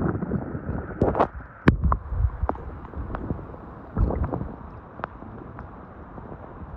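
Shallow river current gurgling and splashing against a camera held at the waterline, with several sharp clicks. About halfway through it settles into a quieter, steadier rush of water.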